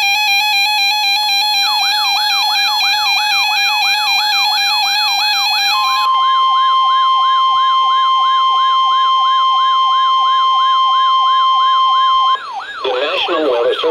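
Weather-radio alert alarm: two alternating tones, joined after a couple of seconds by a fast repeating siren sweep of about three a second. About halfway through, the alternating tones give way to the single steady warning alert tone of NOAA Weather Radio, which cuts off near the end as a synthesized voice begins the warning.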